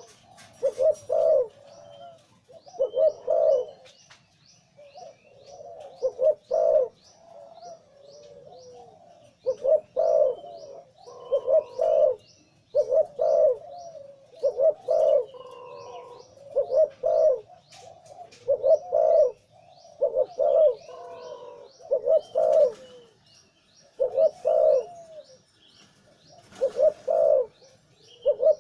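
A male zebra dove of the Thai 'lui tan' song type, big-voiced, cooing over and over in short clustered phrases every second or two. Behind it, other small birds give a steady, rapid run of faint high chirps.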